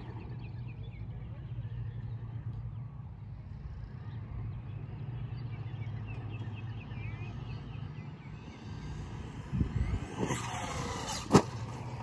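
Brushless electric motor of a Traxxas Mini Maxx RC monster truck, heard faintly, whining up and down in pitch as the truck accelerates and slows. A few knocks come near the end, with one sharp, loud click.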